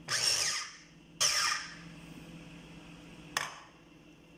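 Electric food chopper pulsed in two short bursts of motor whirring, about half a second each, coarsely chopping whole grapes so that pieces remain. A single sharp click comes near the end.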